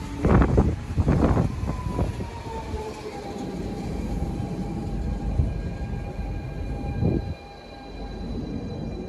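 DSB Litra SA S-train electric multiple unit slowing: a few heavy knocks in the first two seconds, then an electric whine that drops in pitch and holds steady. A brief louder burst about seven seconds in, after which the train sound gets quieter.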